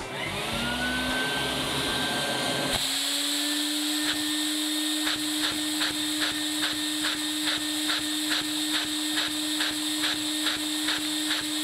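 A vacuum cleaner spins up with a rising whine, then runs steadily while a LEGO vacuum engine with needle roller bearings, driven by its suction, clacks at about two to two and a half strokes a second, quickening slightly. The engine runs worse than a plain-axle version, which is put down to play in the LEGO needle bearing as the suction pulls the crankshaft up.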